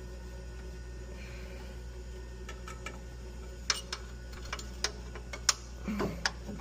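Small, sharp metallic clicks and taps, scattered and irregular from about two and a half seconds in, as a conduit lock nut is worked back and forth onto its threaded connector. A steady low hum runs underneath.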